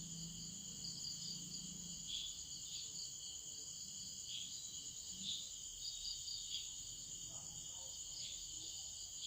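Crickets chirping faintly: a steady high trill with small chirps every second or so.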